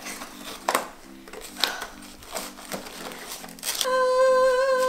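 Paper wrapping crinkling in the hands in a few short rustles over soft background music. Near the end a loud, long held vocal note comes in.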